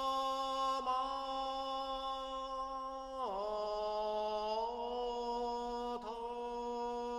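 One voice chanting long, drawn-out held notes, stepping down in pitch about three seconds in and holding there.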